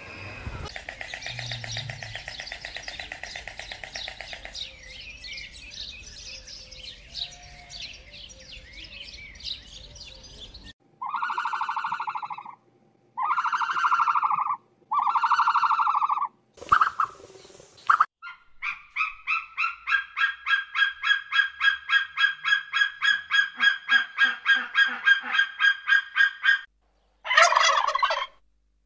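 A string of different bird calls. It opens with a stretch of busy background calling, then three loud drawn-out calls of about a second and a half each, then a rapid pulsing call of about five notes a second lasting several seconds. Near the end a turkey gives a short gurgling gobble.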